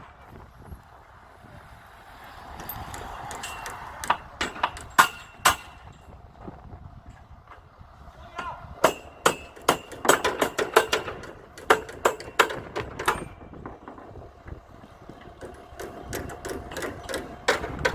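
Construction hammering on wood framing: irregular sharp blows and clanks, at times several in quick succession, heaviest in the middle and near the end, over a low rumble of wind.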